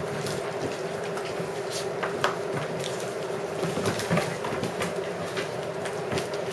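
Puppies playing on a tile floor: irregular clicks and knocks of claws, paws and a plastic toy against the tiles, over a steady hum.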